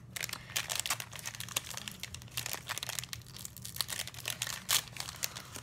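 The wrapper of a Donruss basketball trading-card pack crinkling and tearing as it is opened by hand: a fast, irregular run of small crackles.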